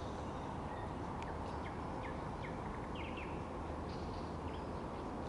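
A songbird singing a run of short, quick chirping notes over a steady low rushing background noise.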